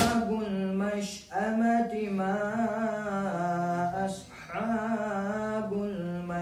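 A man reciting Arabic, most likely the Quran, in a melodic chanted style, drawing out long wavering notes with no accompaniment. One phrase ends about a second in, a longer one runs to about four seconds, and after a short breath a third begins.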